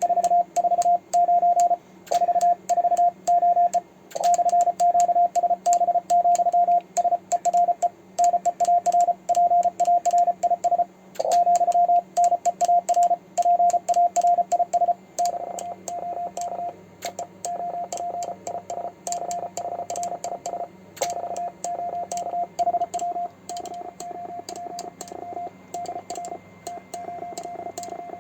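Morse code at about 33 words per minute: a transceiver's CW tone, a single pitch near 700 Hz, keyed in rapid dits and dahs by a homemade 3D-printed iambic paddle, with sharp clicks at the keying. The keying drops to a quieter level about halfway through.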